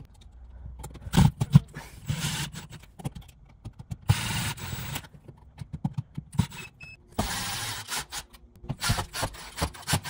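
Cordless power driver running in three short bursts of under a second each, driving the mounting screws of a wall outlet and a light switch into their boxes. Sharp knocks and clicks of handling fall between the runs.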